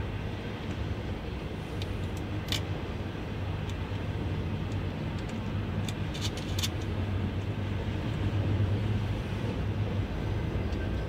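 Sharp metallic clicks of a battery cable lug and terminal hardware being handled on a battery post: one at the start, one about two and a half seconds in, and a quick cluster of three or four around six seconds in. These sit over a steady low background rumble.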